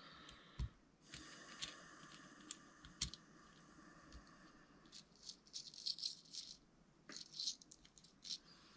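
Faint clicking and rattling of small metal parts from an Arrma RC car's central differential, its spider gears and shims, being handled and fitted. Scattered sharp clicks come through, with quick clusters of rattling in the second half.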